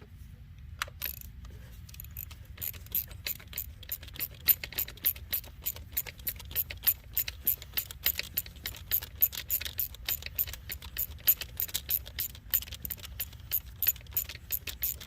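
Socket ratchet clicking rapidly, several clicks a second, while backing out the hold-down bolt of an ignition coil pack. A steady low hum runs underneath.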